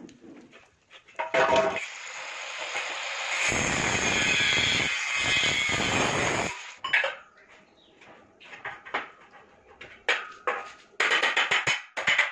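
A power cutter cuts through steel GP pipe for about five seconds, followed by knocks and clanks of the metal pipe being handled. Background music with a steady beat comes in near the end.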